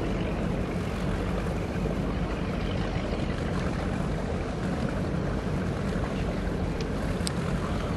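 Boat motor running at a steady low rumble, mixed with wind and water noise.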